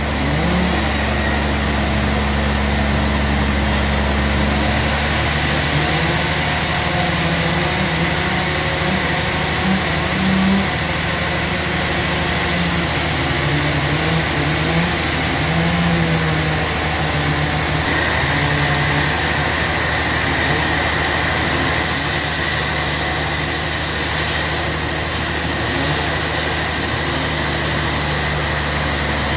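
A large engine running steadily, with a constant low hum.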